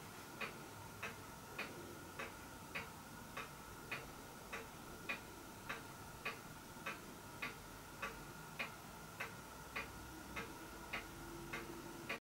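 Faint, even ticking of a clock, a little under two ticks a second, over a faint steady high tone.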